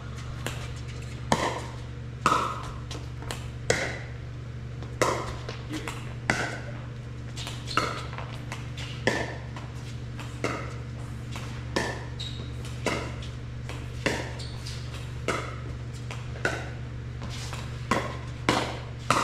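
Pickleball paddles striking a hard plastic ball in a rally, a sharp ringing pop roughly once a second, over a steady low hum.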